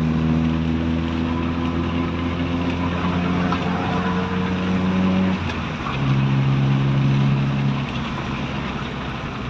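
Toyota Corolla's 2E carbureted four-cylinder engine running on a test drive, its ignition timing freshly set. It gives a steady drone that breaks off about five and a half seconds in, comes back on a different steady note, and eases to a softer running sound near the end.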